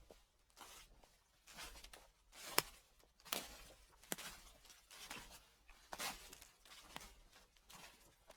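Footsteps crunching through dry fallen leaves at a steady, unhurried walking pace, each step a brief rustling crunch. One sharper crack stands out about two and a half seconds in.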